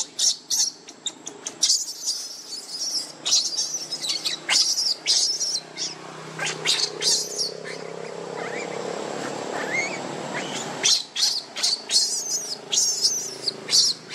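Baby macaque crying: rapid, high-pitched squeals and chirps in clusters with short pauses between them, the distress calls of an infant wanting its mother.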